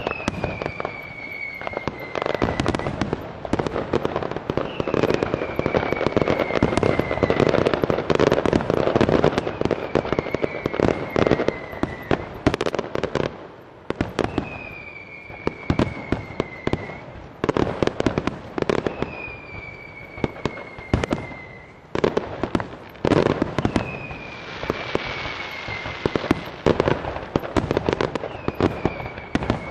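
Fireworks display: a dense run of bangs and crackles from bursting aerial shells, heaviest in the first half. Over it, a falling whistle recurs about every five seconds.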